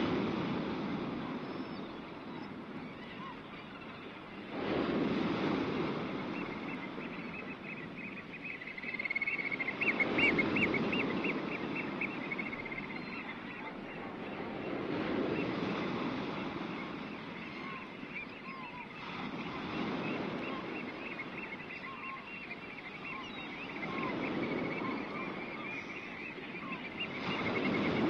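Wind and sea noise over the clifftop, swelling and easing about every five seconds. Through most of it a bird calls in a fast run of repeated high notes.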